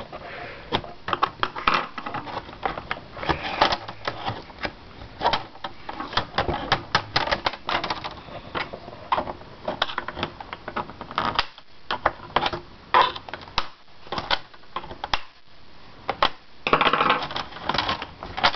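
A steel flathead screwdriver prying plastic laptop hinge parts loose, making rapid, irregular plastic clicks, snaps and scrapes.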